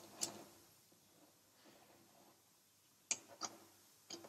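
Allen key clicking in the heads of steel socket-head cap screws as the bolts on a flowmeter's cap are run down to the seat by hand, without tension. A few short metallic ticks: a cluster at the start, two about three seconds in and more just before the end.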